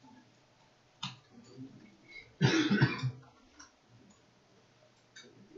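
A short cough, one loud burst of under a second about halfway through, with a couple of faint clicks before and after it.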